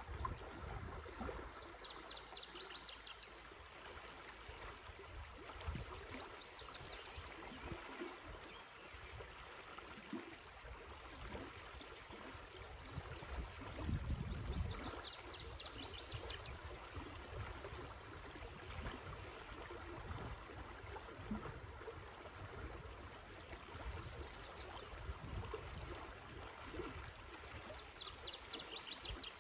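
River current flowing steadily past the bank. A high trill of quick repeated notes recurs several times over it.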